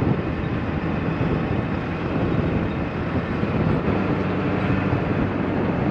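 Strong wind buffeting the microphone of an outside-mounted camera, over the truck's 7.3 Powerstroke diesel engine running as it crawls the trail in low gear.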